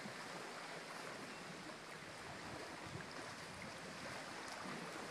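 Low, steady wash of small lake waves against a rocky shoreline.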